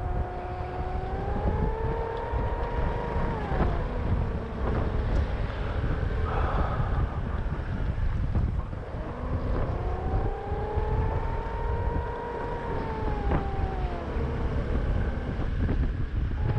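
Road and engine noise inside a moving car, a steady low rumble with a whining engine note that slowly rises and then drops away twice, near the start and again after the middle.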